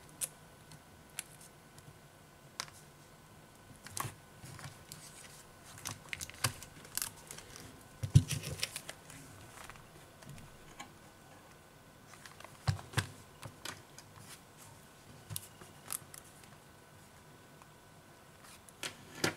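Scattered light clicks and knocks of a tablet being handled and pressed on a workbench as it is switched on and tested, with the loudest knock about eight seconds in.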